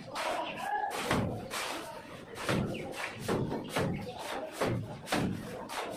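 Shovels scraping and scooping through a heap of cement-sand mortar on a concrete floor as it is mixed by hand, a scrape or thud every second or so.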